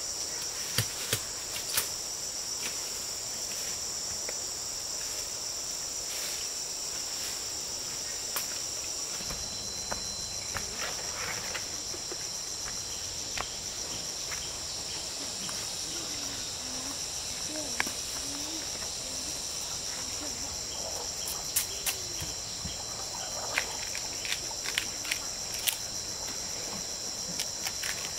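Steady high-pitched insect chorus, with scattered sharp clicks and snaps that come more often near the end.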